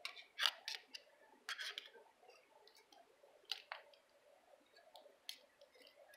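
Faint, irregular metal clicks and scrapes of a knife blade being worked into a handcuff to pry it open.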